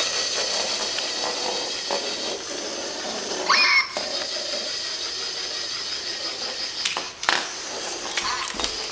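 Zhu Zhu Pets hamster toy's small electric motor whirring steadily as it drives across a hardwood floor, with a brief higher-pitched sound about three and a half seconds in and a couple of short knocks near the end.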